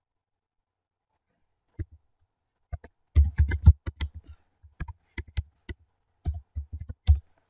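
Typing on a computer keyboard: a run of irregular keystroke clicks, each with a low thud. It starts about two seconds in and stops just before the end.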